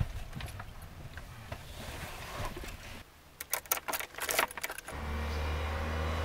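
Car keys jangling and clicking as a key is worked into the ignition of a Mitsubishi Lancer Evolution VIII. Near the end this gives way abruptly to the steady low sound of a car engine running.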